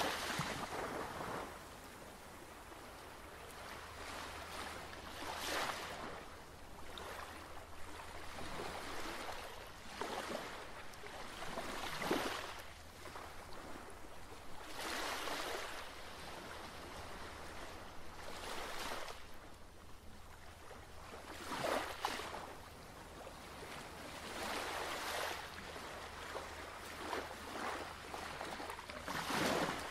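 Ocean waves washing in, the surge swelling and fading every few seconds over a low steady hum.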